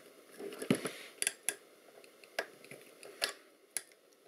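A screwdriver working on the metal parts of a small accelerometer as its screws are undone: about half a dozen sharp, scattered clicks and light knocks of metal on metal.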